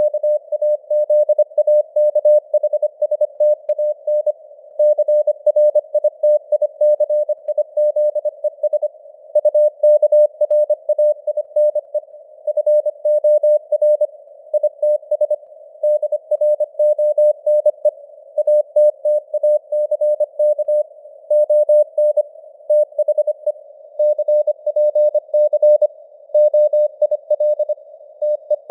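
Morse code (CW) sent at 25 words per minute as a single mid-pitched beep, keyed on and off in rapid dots and dashes. It sits over simulated radio hiss hugging the tone, and the signal strength drifts up and down (QSB fading).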